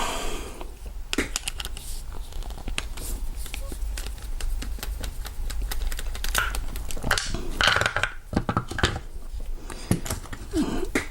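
Small metallic clicks and scrapes of a screwdriver backing the Phillips screw out of a Master Lock 6835 padlock and the lock being handled as it is opened up, over a steady low hum.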